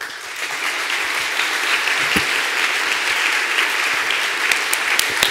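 Audience applauding: dense clapping that starts suddenly and holds steady, with single claps standing out more toward the end as it thins.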